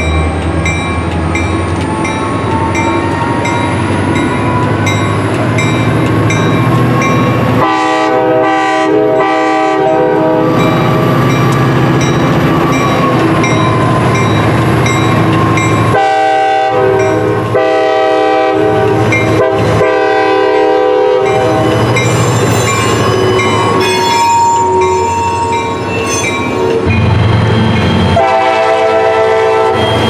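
EMD diesel locomotive engine running with a low rumble while its air horn sounds several long blasts: one about eight seconds in, a run of blasts from about sixteen seconds, and another near the end. A bell rings steadily underneath.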